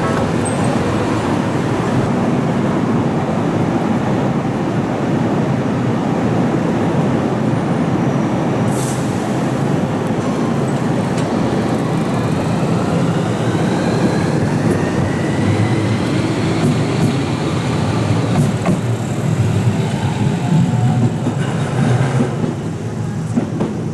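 Steady road-traffic and vehicle rumble at a railway level crossing. In the middle an electric train's motor whine rises in pitch as it accelerates.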